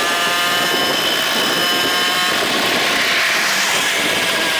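Moped engine running at steady high revs, a high buzzing drone with little change in pitch, and a rush of noise that swells about three seconds in.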